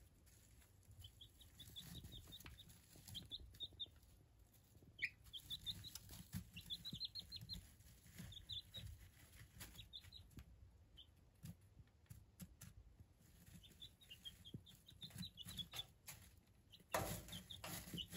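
Month-old ISA Brown chicks peeping, soft high chirps in short runs, with light ticking and scratching in wood-shaving bedding. A brief louder rustle comes near the end.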